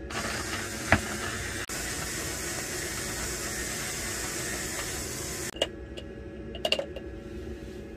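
Small electric coffee grinder running, grinding coffee beans with a steady hiss, then cutting off suddenly about five and a half seconds in. A few short clicks and taps follow as its glass grounds cup is handled.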